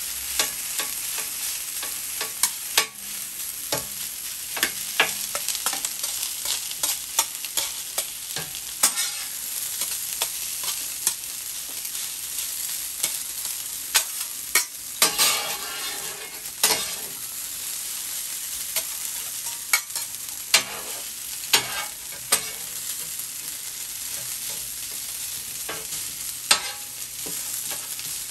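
Fried rice sizzling on a Steelmade USA steel flat-top griddle, with frequent sharp clicks and scrapes as a spatula and food mover chop and turn it against the steel plate. A longer stretch of scraping comes about halfway through.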